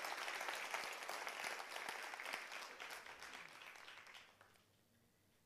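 Audience applauding, the clapping fading away over the last couple of seconds.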